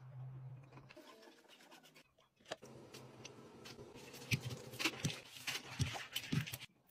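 Silicone toilet brush scrubbing inside a toilet bowl: faint, irregular scratching and rubbing strokes that grow busier in the second half.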